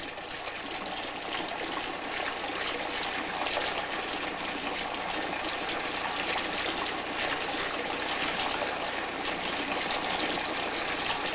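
Water running steadily from a tap into a sink, an even rush with no break.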